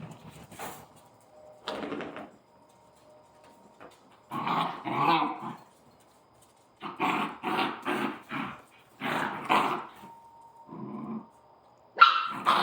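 Scottish terrier puppies growling at each other while play-fighting, in about five short bouts with brief pauses between.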